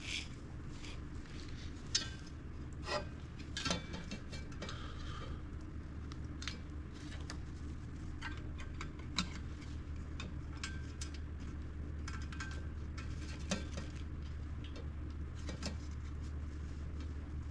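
Scattered clicks and light clinks of small hard parts and tools being handled, a few louder knocks among them, over a steady low hum: the repaired AC control rheostat being refitted into the car's console.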